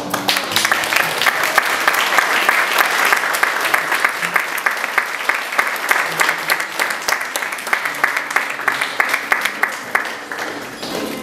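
A room of guests applauding: dense clapping that builds over the first couple of seconds, holds steady, and thins out near the end.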